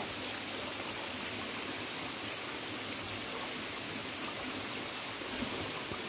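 Steady rush of flowing stream water, an even hiss with no breaks.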